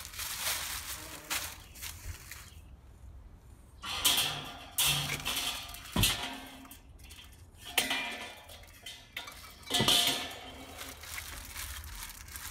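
Plastic wrapping crinkling and rustling as it is pulled off the grill's wire grates, with metal clinks and knocks as the steel grates are handled and set on the kettle bowl; the sharpest knock comes about six seconds in.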